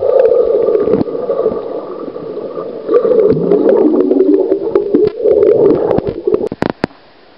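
Swimming-pool water heard through a submerged camera: muffled gurgling and wavering low tones. A few sharp clicks about six seconds in, then it drops away.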